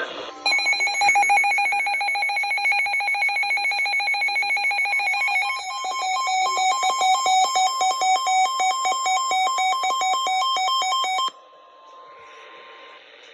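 Emergency weather alert tones: a loud, rapidly pulsing electronic warble like a phone ring starts about half a second in. Its pitch pattern changes midway, and it cuts off abruptly near the end, leaving a faint steady tone. This is the alert signal that comes before a severe thunderstorm warning is read.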